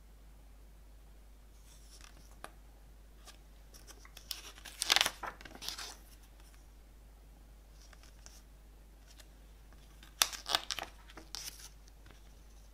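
Pages of a glossy CD booklet being turned by hand: two short bursts of paper rustling and flicking, about five seconds in and again around ten seconds in.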